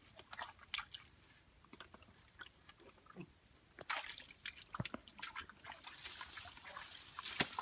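Hands splashing and squelching in shallow muddy water, with scattered small splashes and drips that grow busier from about four seconds in.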